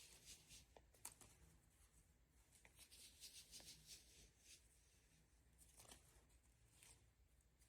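Near silence with faint rustling of paper being handled, and a light click about a second in.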